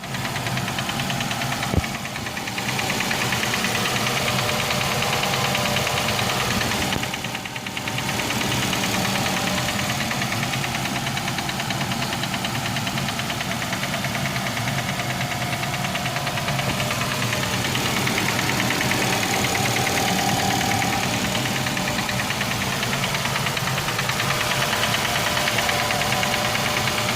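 Nissan X-Trail T32's 2.5-litre four-cylinder engine running steadily with a fast, even knock: a failing connecting rod and its bearings, which were later replaced in a major engine rebuild. A single sharp click about two seconds in.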